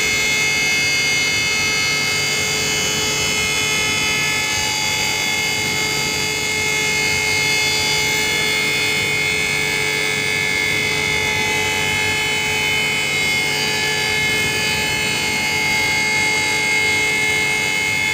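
Hydraulic passenger lift's power unit running steadily as the ram pushes the car upward: a constant mechanical whine made of several steady tones.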